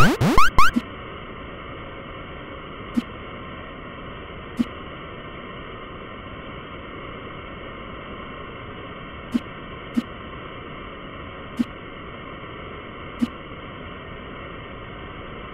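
Quick rising swooping sound effects right at the start. After them, a steady static-like hiss with six soft clicks at uneven intervals, like taps or scroll clicks on a phone screen.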